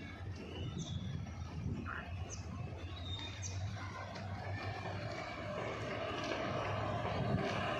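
Distant EMD WDP4D diesel locomotive approaching; its low engine drone and rumble grow steadily louder through the second half. Birds chirp briefly a few times.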